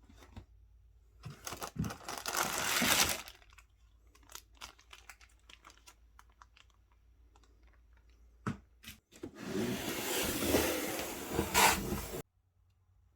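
Packaging handled and opened by hand: two stretches of tearing and rustling, with light clicks between them and a couple of sharp knocks just before the second stretch.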